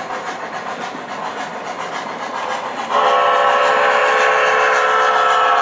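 Sound system of an MTH Premier O-gauge Jersey Central camelback 4-6-0 model steam locomotive: steam-running noise over the rails, then about three seconds in a loud multi-tone steam whistle comes on and is held steadily.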